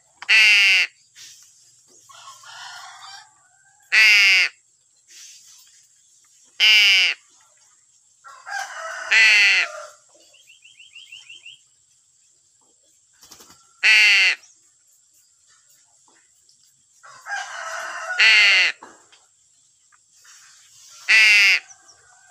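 Birds calling: loud, short, harsh calls that drop in pitch, seven of them about every three to four seconds, with quieter rough chattering between.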